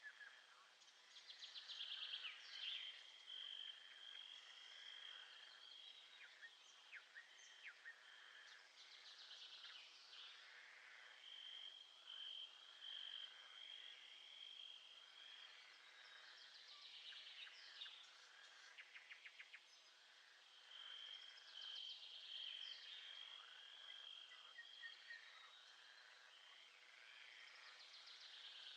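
Nature ambience of birds chirping and trilling in repeated short phrases, with stretches of a steady high-pitched trill, all quiet and low in level.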